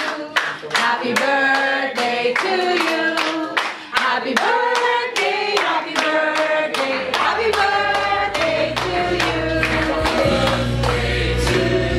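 A group of party guests singing together while clapping along in a steady beat, a little over two claps a second. A deep low bass tone comes in past the middle.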